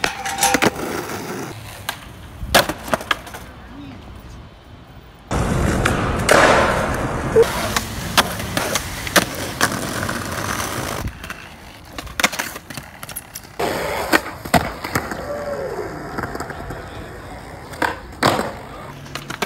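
Skateboards rolling over asphalt, brick and concrete, with repeated sharp clacks of tails popping and boards landing during flip tricks. A loud, rough rolling rumble runs from about five seconds in to about eleven seconds in.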